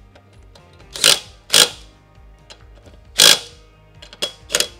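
Socket wrench clicking in five short bursts while tightening a castle nut on a go-kart wheel spindle, over background music.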